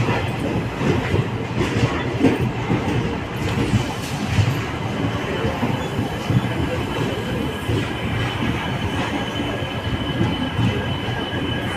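Passenger train rolling slowly with a rumble and clatter of wheels on track. About halfway through, a steady high squeal sets in as the train brakes to a stop at the platform.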